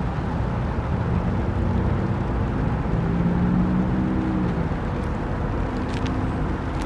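Federal Signal Model 5 outdoor warning siren starting up: a steady low rumble with faint low tones, before its full wail builds.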